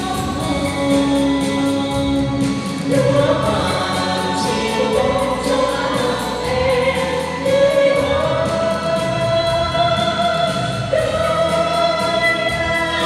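Music: a choir singing in long held notes, several voices together.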